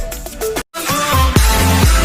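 Electronic dance music. It cuts out for an instant a little over half a second in, then starts again with a steady kick-drum beat of about two hits a second.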